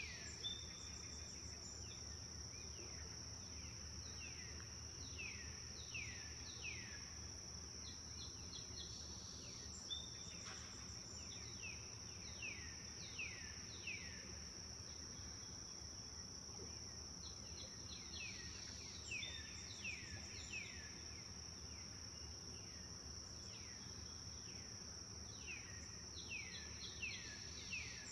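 Bird song: runs of three or four quick notes, each falling in pitch, repeating every few seconds with a pause midway. Under it runs a steady high-pitched insect drone.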